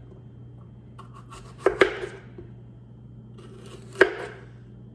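Knife cutting bell peppers on a cutting board: two sharp chops about two seconds apart, each with a few light clicks just before it.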